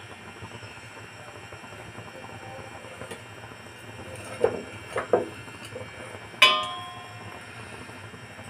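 A metal spatula knocking against the griddle and stove grate as a ragi roti is lifted and flipped: a few short knocks, then one sharp metallic clank that rings briefly about six seconds in.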